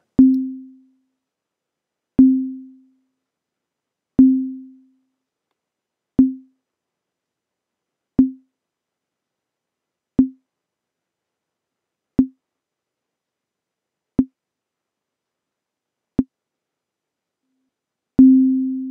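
Ableton Operator synth playing a repeated pure sine-like note at about middle C, once every two seconds. Each note starts at full volume with a small click and then fades out. The envelope's decay time is being turned down with the sustain at zero, so the fades get shorter note by note until they are brief percussive blips. Near the end, one note rings out longer again.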